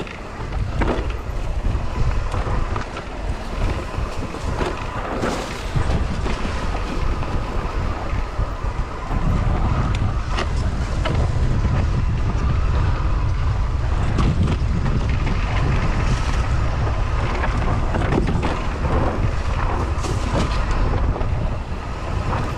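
Wind rushing over the microphone of a bike-mounted action camera during an electric mountain bike ride on a dirt trail, with scattered knocks and rattles from the bike over bumps. The wind grows heavier about nine seconds in.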